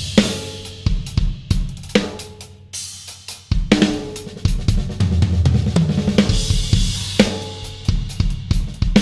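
Yamaha Stage Custom Birch drum kit being played in a busy groove and fills: bass drum, snare, pitched tom strokes and hi-hat, with cymbal crashes near the start and again about six and seven seconds in.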